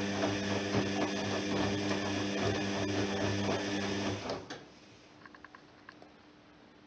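Privileg 3020 front-loading washing machine in its 95 °C cotton wash: the drum motor hums steadily as the laundry tumbles, then stops about four seconds in, a pause in the wash rhythm, followed by a few faint clicks.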